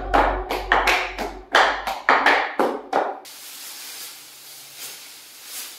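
End of a piece of background music: a run of sharp, clap-like percussive hits over a fading bass, about three to four a second. It cuts off suddenly about three seconds in, leaving faint room hiss with a couple of soft rustles near the end.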